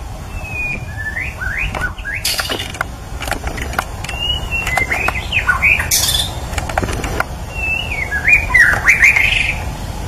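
White-rumped shama (murai batu) singing: three phrases of whistled notes that slide up and down, with two short hissy bursts between them, over a low rumble of wind on the microphone.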